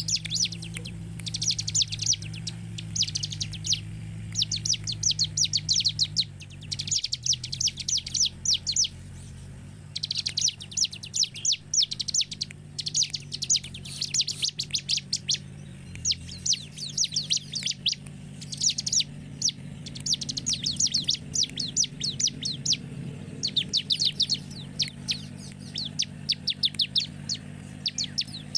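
Bar-winged prinia (ciblek) singing: bursts of rapid, high, repeated notes, each burst a second or two long, one after another with short pauses.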